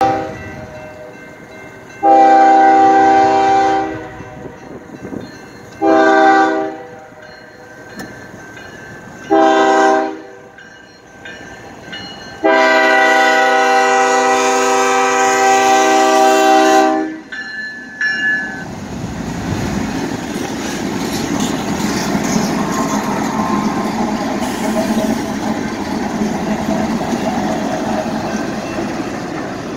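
Diesel freight locomotive horn sounding four chord blasts for a grade crossing: one of about two seconds, two short ones, then a long one of about four and a half seconds. From about eighteen seconds in, the lead BNSF locomotives and their wheels run past with a steady rumble and rail clatter.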